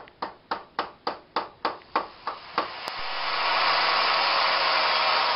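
About a dozen quick, evenly spaced metallic taps, roughly three to four a second, then a loud steady hiss that holds on.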